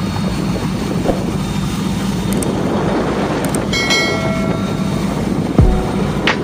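Steady rumble of a ship's engine mixed with the rush of water and wind on deck while the vessel is under way. A short electronic chime sounds a little past halfway, and a brief whoosh near the end.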